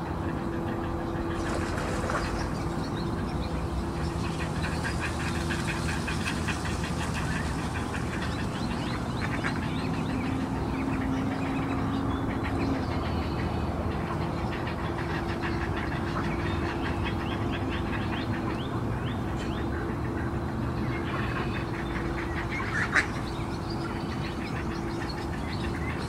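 A steady engine hum in the background, with ducks quacking in quick bouts, and a single sharp click near the end.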